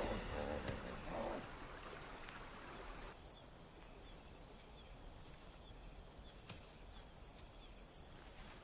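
Crickets chirping at night: short high trills, each about half a second long, repeating roughly once a second from about three seconds in, as background music fades out in the first seconds.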